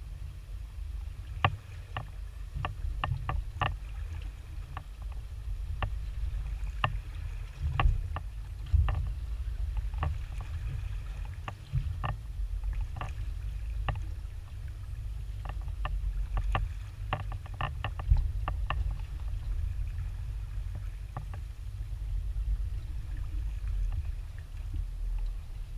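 Water moving around a small aluminium boat: a steady low rumble with irregular sharp ticks and knocks scattered through, several clustered together at times.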